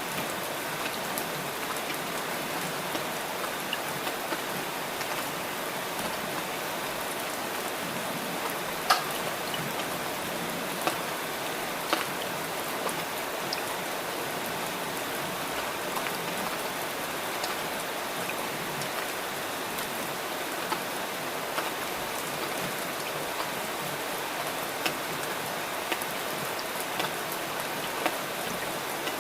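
Steady rain falling, a constant even hiss with scattered louder drops ticking on a surface; the sharpest drops come about nine and twelve seconds in.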